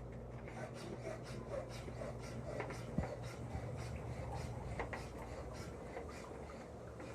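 Repeated short rubbing or scrubbing strokes, several a second, over a steady low hum, with one sharper click about three seconds in.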